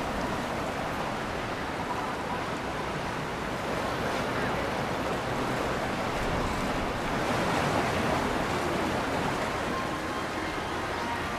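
Steady, even rushing of wind and moving water, with no distinct events.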